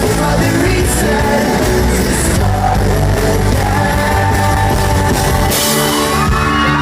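Rock band playing live with a sung lead vocal over guitars, bass and drums; the lowest notes drop away near the end.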